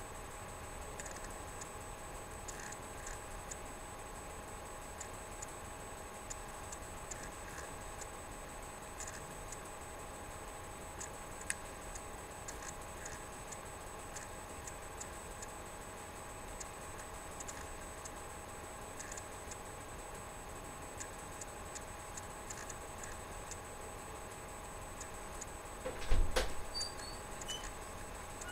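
Quiet room tone: a steady electrical hum with faint ticking throughout. A few loud knocks and bumps come near the end.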